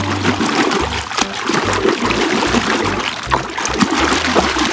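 A hand squishing and swishing through wet, stringy material in coloured water: wet squelching, sloshing and splashing.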